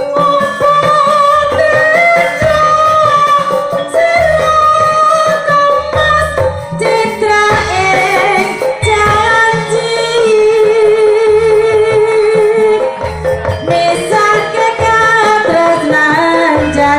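Live Jaranan music from East Java: a woman's voice sings a wavering, ornamented melody over a repeating beat of low drum strokes and metal percussion.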